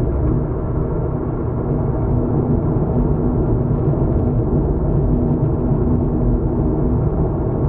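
Steady low road and tyre rumble of a moving car heard from inside the cabin, with a faint steady hum running through it.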